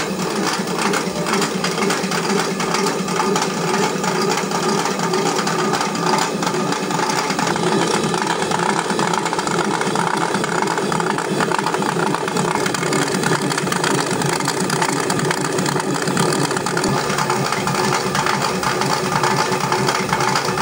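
Water-powered stone flour mill running: the turning millstone grinds grain with a loud, steady, rapid clatter, as the grain feeder rattles against the stone.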